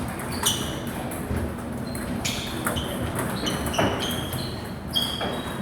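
Table tennis balls striking paddles and tables: a string of irregular sharp clicks and knocks, many with a short high ping, overlapping as if from more than one rally.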